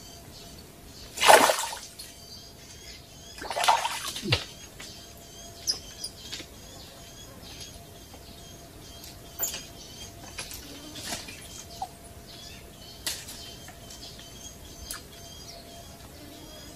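Two short splashes in shallow creek water, about one second and three and a half seconds in, the first the louder, followed by a sharp knock. Small birds chirp repeatedly in the background.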